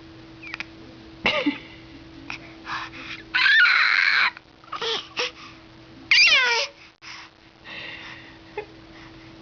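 A baby making high-pitched squeals and squeaky vocal noises: several short squeaks, a long loud squeal about three and a half seconds in, and another about six seconds in that slides downward in pitch.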